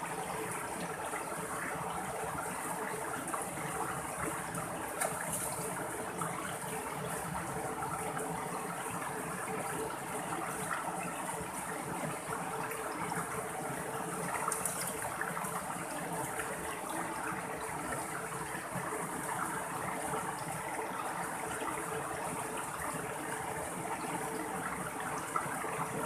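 Mountain stream running steadily over rocks and small cascades, a constant rushing and splashing of water.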